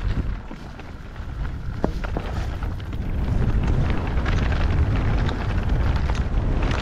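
Wind buffeting the camera microphone over the rumble and rattle of a mountain bike riding a rough, stony trail, with scattered clicks and knocks; it gets louder about three seconds in.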